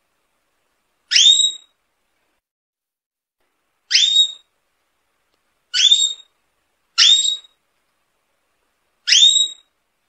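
Domestic canary giving single short calls, each a quick upward-sliding whistle, five of them one to three seconds apart with silence between.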